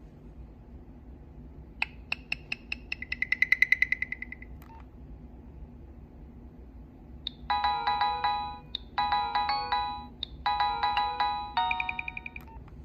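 Nokia 6016i's built-in gallery ringtones playing through the phone's small speaker. First comes a short run of quick beeps that speed up into a brief buzzing tone. After a pause, a ringtone melody plays in several fast bursts of notes.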